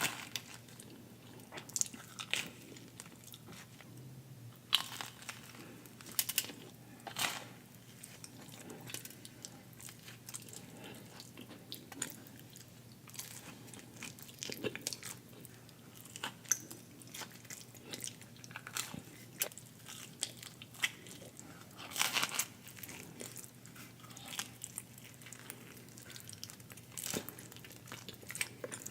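Close-miked eating: a person biting into crunchy food and chewing, with sharp crunches coming irregularly every second or so. The loudest cluster comes about 22 seconds in.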